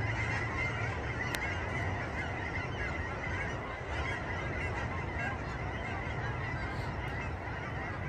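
A large flock of geese honking together at a distance, a continuous dense chorus of overlapping calls from birds just flushed and disturbed by a dog.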